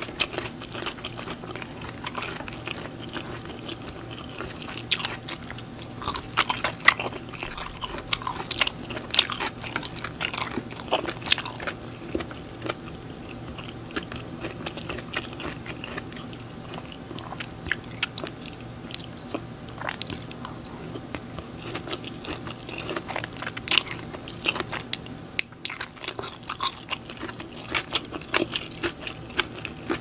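Close-miked eating sounds of glass noodles (japchae) being chewed: wet chewing and lip smacking with many sharp, irregular mouth clicks, over a faint steady hum.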